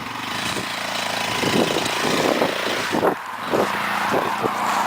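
ATV engine running under throttle as the quad drives off, getting louder over the first second and then holding steady, with scattered knocks.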